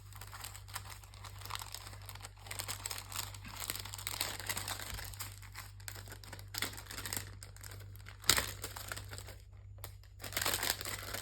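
Crinkling of craft-supply packaging and papers being handled and sorted, irregular and continuous, with one sharp click about eight seconds in, over a steady low hum.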